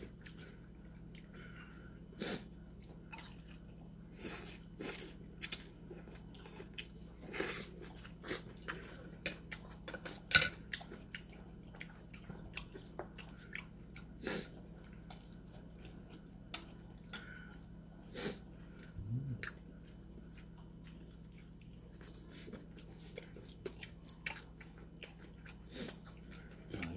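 A person chewing and crunching food at close range, with scattered sharp clicks, over a faint steady low hum.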